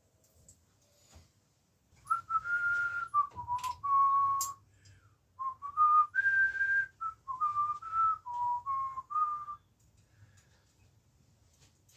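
A person whistling a tune: two short phrases of clear single notes stepping up and down, with a break between them. A couple of brief clicks come during the first phrase.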